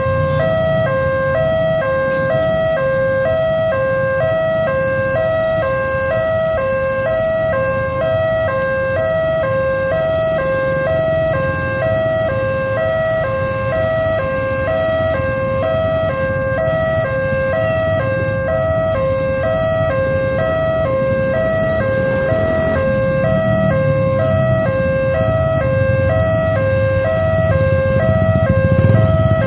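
Railway level-crossing warning alarm: an electronic signal switching steadily back and forth between two tones, sounding while the barriers are down. Motorcycle engines idle low underneath.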